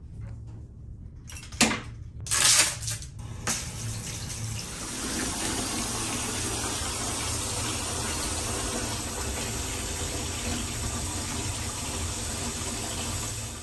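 Water running from a bathtub's mixer tap into the tub, a steady rush that builds over the first few seconds and then holds. A few clicks and knocks come before it, and a low steady hum runs underneath.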